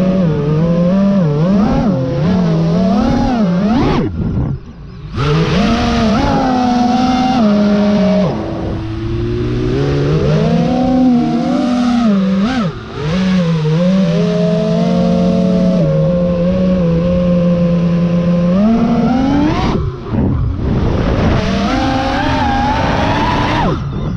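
FPV freestyle quadcopter's brushless motors and propellers whining, the pitch rising and falling constantly with the throttle. It drops away briefly twice, once about four seconds in and once near the end.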